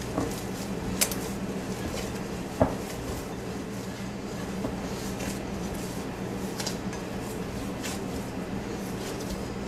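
Hands mixing masa harina and warm water into dough in a glass bowl, with a couple of sharp knocks against the glass in the first few seconds, over a steady low hum.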